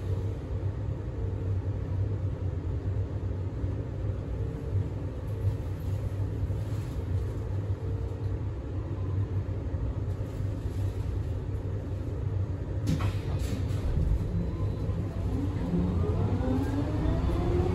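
Steady cabin rumble of a Scania K320UB hybrid bus on the move, with a brief knock or rattle about 13 seconds in. In the last few seconds a whine of several tones rises in pitch as the drivetrain picks up speed.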